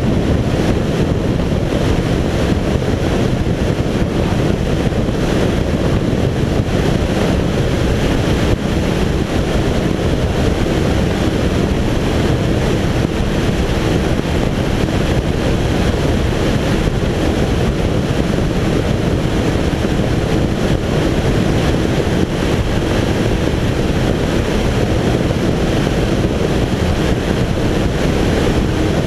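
2006 Pantera 36 Survivor powerboat running at speed: a steady, loud rush of wind buffeting the microphone and water noise, with the engines droning underneath.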